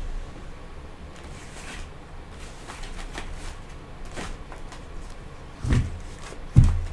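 Tarot cards being handled on a table: scattered soft clicks and rustles, with two low thumps near the end.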